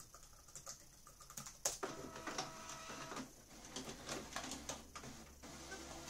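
Laptop keyboard typing, ending in one sharper keystroke a little under two seconds in. Then an inkjet printer's motors start whirring, with clicks and taps from its mechanism, settling into a lower steady hum near the end: the printer waking up for an incoming print job.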